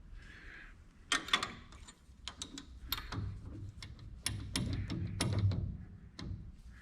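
Irregular metallic clicks and clanks from lathe fittings and tools being handled and tightened while a steady rest is set up on the lathe, over a low hum.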